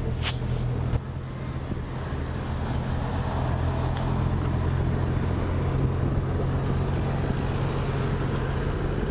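Motor vehicle engine running steadily on the move, heard from inside an open-sided vehicle, with road noise. A short high squeak near the start.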